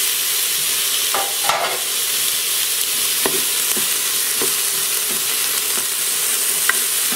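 Diced onions and green pepper sizzling steadily in the hot inner pot of an electric pressure cooker on its sauté setting. A plastic spatula scrapes and taps against the pot now and then as the vegetables are stirred.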